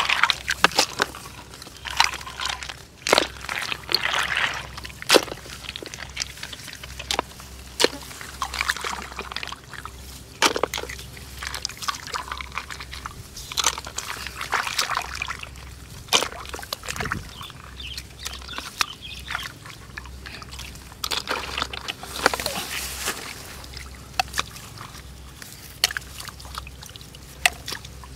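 Hands sloshing and splashing through shallow muddy water while picking out mud snails, with irregular sharp clicks and knocks throughout.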